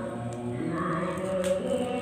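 Background music with singing voices holding steady notes that change pitch every half second or so.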